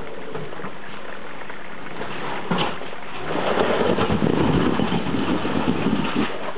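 Jeep Wrangler engine running at low speed as the Jeep crawls over rocks, louder and rougher for about three seconds from about halfway through as it climbs a rock ledge.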